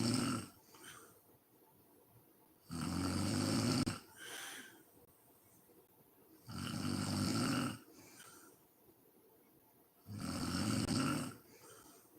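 A sleeping woman snoring in a regular rhythm: three loud, low, rattling snores on the in-breath, about every three and a half seconds, each followed by a shorter, softer breath out.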